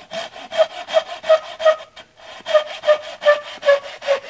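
Handsaw cutting through a dried spruce pole, in quick back-and-forth strokes about two and a half to three a second, with a brief pause about two seconds in.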